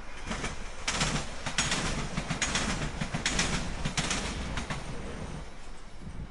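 A train passing, its wheels clattering over rail joints in a run of sharp knocks, often in pairs, over a steady rumble; the clatter eases off about five seconds in.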